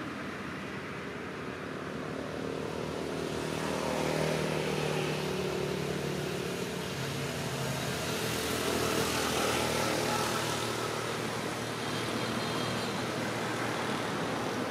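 A motor vehicle's engine running as it passes, its noise swelling from about four seconds in and easing off near the end.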